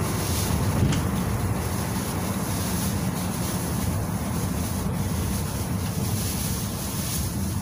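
Cabin noise inside a moving GAZelle Next minibus with an Evotech 2.7-litre engine: a steady low drone of engine and road noise, with a single short click about a second in.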